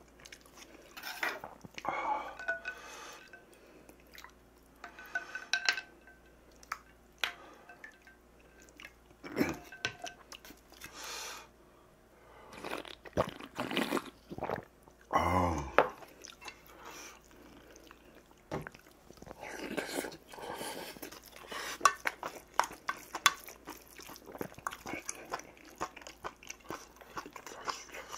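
Close-up eating sounds: chewing and crunching food, with stainless-steel chopsticks and spoon clicking against a metal bowl. About halfway through there is a louder sip of broth from a metal spoon.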